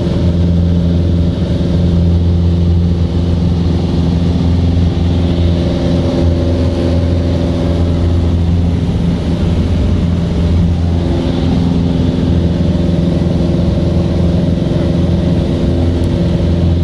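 Light aircraft's piston engine and propeller droning steadily, heard from inside the cabin.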